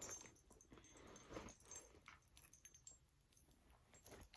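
Near silence with faint scattered clicks and soft rustles of small items and a fabric pouch being handled.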